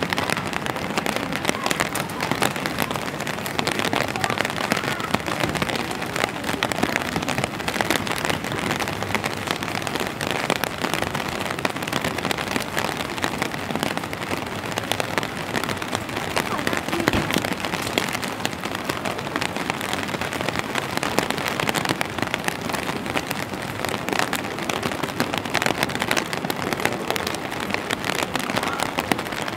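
Steady rain falling: an even hiss with a dense patter of individual drops.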